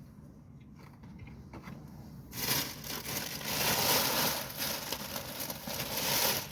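Faint chewing, then about two seconds in a loud crinkling, rustling noise that starts suddenly and runs on for about four seconds.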